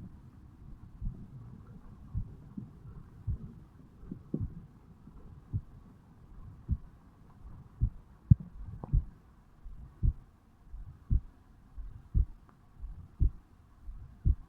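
A resting human heartbeat just after waking, recorded on the chest over the mitral valve area: low, regular thumps at a little under one beat a second.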